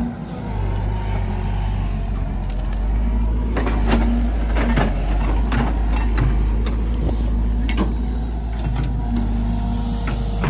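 JCB tracked excavator's diesel engine running steadily under load as it digs, with a hydraulic whine that comes and goes. Sharp clanks and knocks from the bucket working in the mud sound several times.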